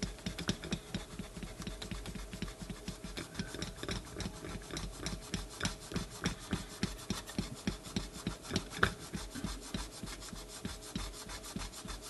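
Pencil eraser scrubbing back and forth on a door chime's circuit board, in quick, even strokes several times a second. It is rubbing off carbon tracks that contact sparking has left on the silver traces, build-up that can stall the chime motor.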